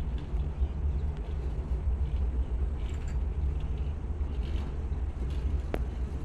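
Steady low rumble inside a moving cable car gondola as it rides along the cable, with a few faint clicks and one sharp tick near the end.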